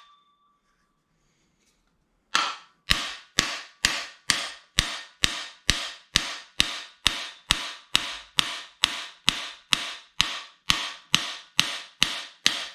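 Steady hammer blows on a cam bearing installer's driver, a little over two a second, each a sharp metallic strike with a short ring, driving a new camshaft bearing into its bore in a 350 small-block Chevy block. The blows start about two seconds in and stop just before the end.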